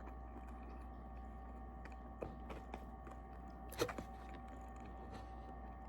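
Quiet room tone with a steady low electrical hum, a few faint clicks, and one slightly louder short sound just before the four-second mark.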